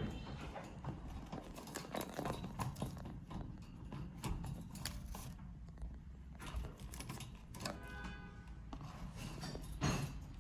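Irregular clicking and scratching of a budgerigar chick's claws and beak on a hard surface as it climbs, with a short pitched chirp about eight seconds in.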